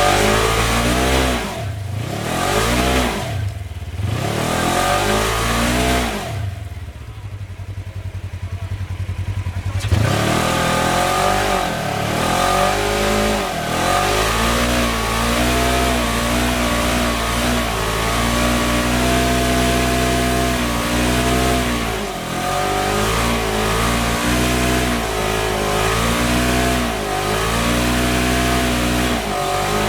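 Side-by-side UTV engine revving up and down repeatedly. About six seconds in it drops to a low, even idle for a few seconds, then revs up again and keeps rising and falling.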